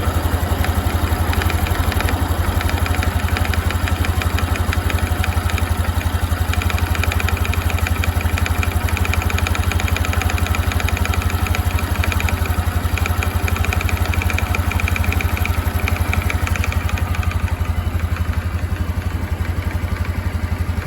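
Honda CT125 Hunter Cub's air-cooled single-cylinder engine idling steadily, with a rhythmic mechanical clatter riding on the engine beat: the abnormal noise the owner is showing. The clatter grows sharper for several seconds in the middle, then eases.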